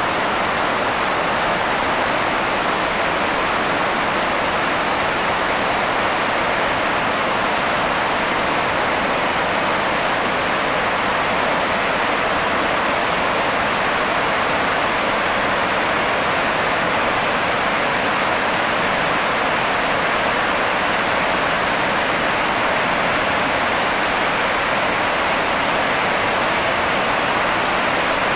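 Mountain waterfall and white-water torrent rushing over rocks, a steady, unbroken rush of water.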